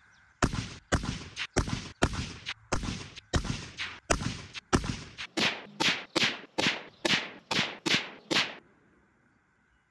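A rapid string of about seventeen rifle shots from a Tikka T3x CTR bolt-action rifle in 6.5 Creedmoor, roughly two a second, each a sharp crack with a short fading tail. The string stops about a second before the end, and the rate is too fast for a bolt action, so the shooting is sped up.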